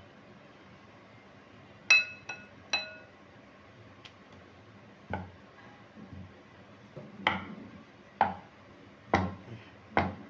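A wooden rolling pin knocks on a round wooden board as maida dough is rolled out thin, five dull knocks in the second half. About two seconds in there are three quick, sharp, ringing clinks.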